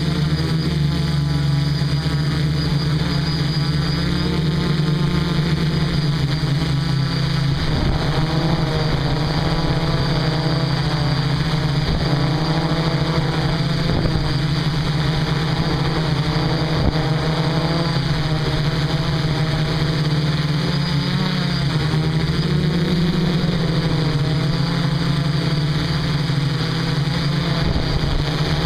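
DJI F450 quadcopter's four brushless motors and propellers running steadily, heard from the camera mounted on the craft; the pitch wavers slightly as the motors change speed.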